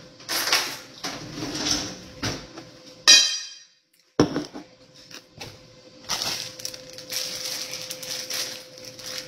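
Kitchen handling noise: dishes knocking, with one sharp loud clatter about three seconds in, after which the sound cuts out for about half a second. From about six seconds in, a plastic bag of crunchy cookie M&M's crinkles steadily as it is handled and opened.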